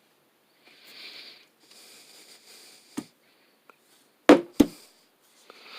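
A man breathing noisily through his nose close to the microphone, then a faint click and two loud sharp clicks in quick succession from handling the cable wires.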